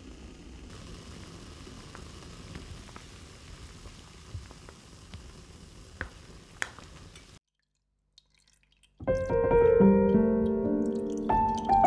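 Rhubarb pieces simmering in water in a glass bowl: a steady low bubbling hiss, with a couple of sharp clicks as a wooden spoon stirs against the glass. It cuts off suddenly, and after a short silence, about three quarters of the way through, louder piano music starts.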